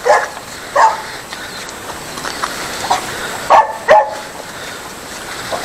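A dog barking: about five short, sharp barks at irregular intervals.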